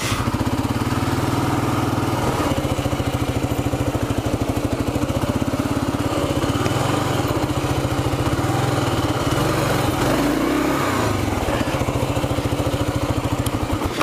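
Kawasaki KLR650 single-cylinder four-stroke engine running at low speed with a steady, rapid pulse as the bike creeps into the shallow edge of the creek; the engine note shifts briefly about ten seconds in.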